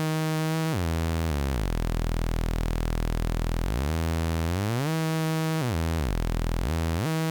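DIY modular synth oscillator (VCO) giving a steady, buzzy tone whose pitch is swept by the joystick's control voltage. It slides down, holds low, slides back up, then dips and rises twice more in quick succession.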